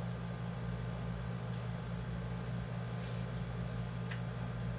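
Steady low electrical hum of room tone, with a faint short scratch about three seconds in and a soft tick near the end.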